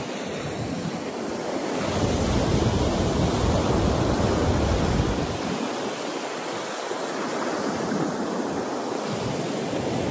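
Ocean surf breaking and washing up the sand at the shoreline, swelling louder about two seconds in and easing off again after about five seconds.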